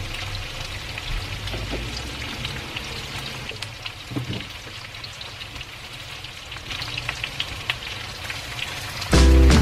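Pork pieces sizzling and crackling in hot oil in a frying pan, a steady spatter of small pops. Music comes in loudly near the end.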